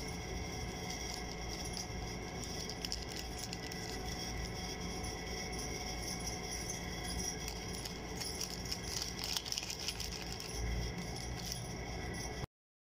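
Jelly powder shaken out of a plastic sachet into a pot of water: faint crinkling of the packet with light ticks and patter, a little busier near the end.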